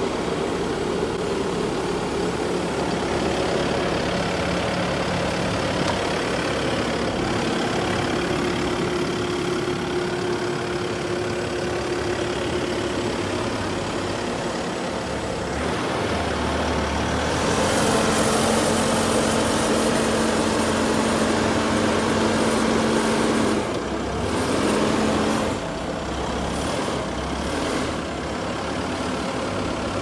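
Skid steer's diesel engine running, with its load changing: about halfway through it picks up and a steady whine sets in, which breaks off, comes back for a moment and stops.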